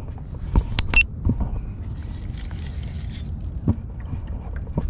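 Scattered sharp knocks and clicks of rod, reel and kayak being handled while a hooked fish is fought, over a steady low rumble.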